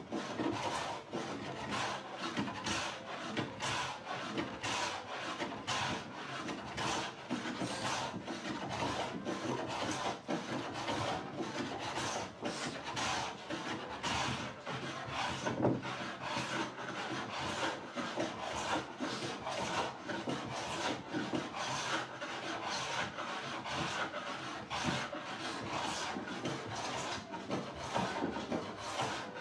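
A wooden door board being abraded by hand, with rapid back-and-forth rubbing strokes across the wood to take down its high spots.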